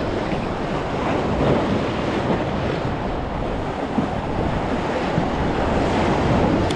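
Wind buffeting the microphone over small waves washing and splashing against jetty rocks: a steady rush of surf noise.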